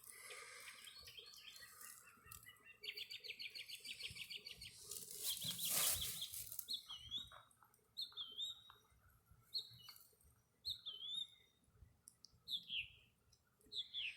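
Songbirds calling: a fast high trill, then a series of short, sharply falling chirps repeated about once a second. A brief loud rushing noise comes about six seconds in.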